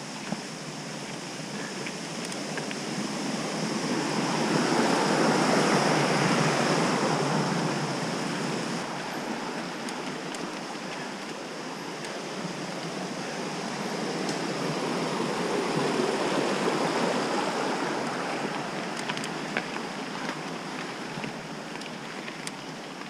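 Wind rushing over the microphone of a camera on a mountain bike moving at speed, with the tyres rolling over a dirt and gravel trail and occasional small clicks. The rushing noise swells louder twice, about five seconds in and again about fifteen seconds in.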